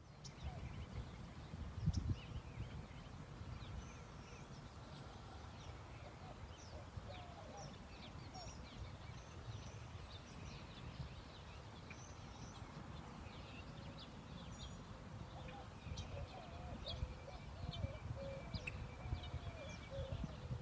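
Faint outdoor park ambience: many small birds chirping and twittering throughout, over an uneven low rumble, which peaks about two seconds in.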